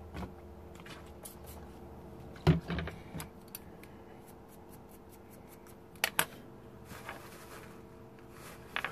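Small hand tools and parts being handled on a wooden workbench during circuit-board repair work: scattered sharp clicks and knocks over a faint steady hum. The loudest knock comes about two and a half seconds in with a short flurry after it, a quick pair of clicks about six seconds in, more just before the end, and light rapid ticking in between.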